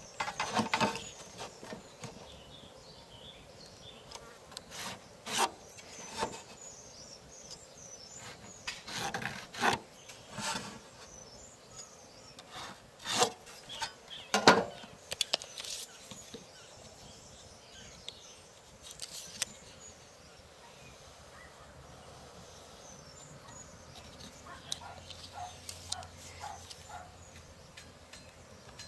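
Irregular knocks and rubbing as a softwood board and a hand saw are handled and shifted on a workbench, with the loudest knocks about halfway through and only light ticks and rustles later.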